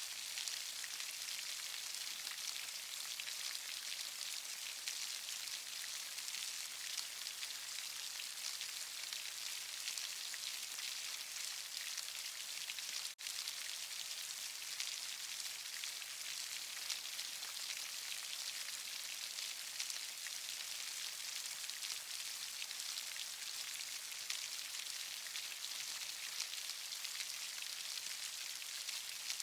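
Steady rain falling, an even hiss of many drops strongest in the high range, with a split-second dropout in the sound about halfway through.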